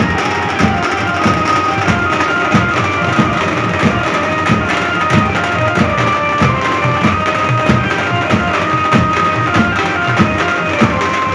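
Live procession drum band: large marching bass drums and metal-shelled drums beat a steady rhythm of about one and a half heavy strokes a second, with quicker lighter strokes between, under a high stepping melody line.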